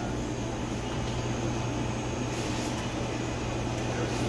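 Steady low mechanical hum with an even background hiss.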